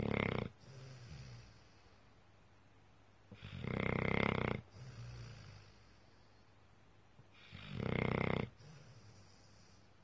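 Sleeping pit bull snoring really loud: rough, rattling snores about every four seconds, each followed by a softer, lower snore.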